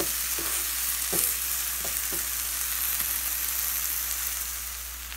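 Mushrooms and cherry tomatoes sizzling in oil and butter in a nonstick frying pan, with a spatula scraping and stirring through them several times in the first few seconds. The sizzle gets a little quieter near the end.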